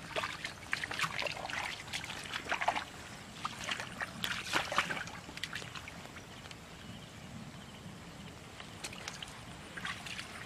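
Hands and legs splashing and sloshing in shallow muddy water while groping for fish by hand, in irregular bursts that are busiest in the first half, then fainter with a short flurry near the end.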